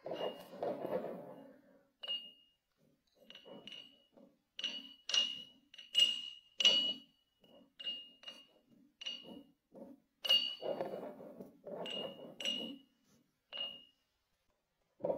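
Wooden honey dipper chopping and pressing kinetic sand inside a glass mug: soft gritty crunching of the sand, with about fifteen irregular knocks of the wood against the glass, each giving a short clear ring.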